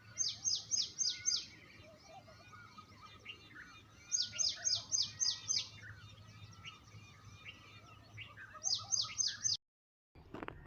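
A songbird singing three quick phrases, each a run of four to six high, falling notes, with other birds calling faintly behind it. The sound drops out for a moment near the end, followed by a brief click.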